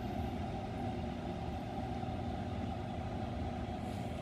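A 5,000 BTU air conditioner running steadily on inverter power, its compressor and fan giving a constant hum with a low drone.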